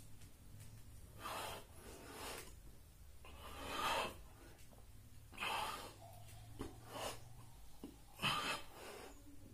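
A man breathing hard during push-ups: short forceful breaths, about one every second and a half, in time with the repetitions.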